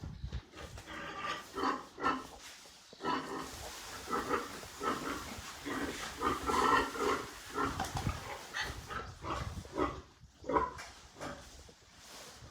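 Farm animals calling: a string of short, irregular calls.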